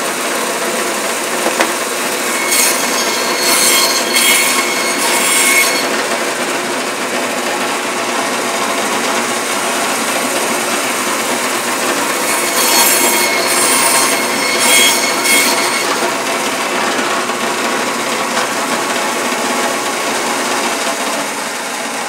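Butcher's meat bandsaw running steadily and twice sawing through a slab of beef braising ribs, bone and all, to cut thin Miami (Korean-style) short rib strips. Each cut lasts about three seconds and adds a harsh, high rasp over the steady running of the saw, the first a few seconds in and the second about halfway through.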